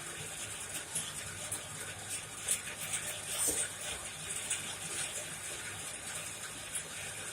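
Coal forge running with forced air, a steady rushing hiss with faint crackling from the burning coal while a knife blade heats for hardening.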